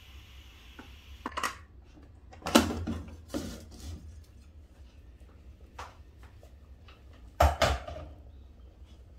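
The last of the steam hisses out of an aluminium pressure cooker's valve as its pressure is let down, and stops about a second in. Then come metal clanks and clatters as the lid is unlocked and taken off the pot, with a loud clank about two and a half seconds in and another near the end.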